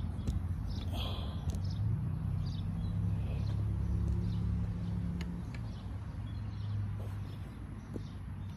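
Outdoor ambience: a steady low rumble that eases after about five seconds, with scattered short bird chirps over it.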